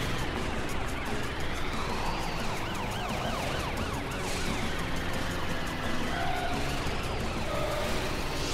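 Police car siren wailing in slow rises and falls, with a quick warbling passage about two to three seconds in.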